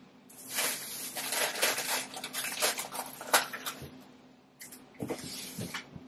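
Refrigerator door opened and things inside handled: rustling and light clattering in a long spell, a short lull, then a second spell near the end.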